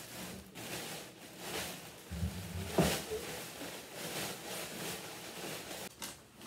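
Clear plastic bag crinkling and rustling as it is handled and held up to the toilet's water-supply connection to catch dripping water, with one sharp knock a little under three seconds in.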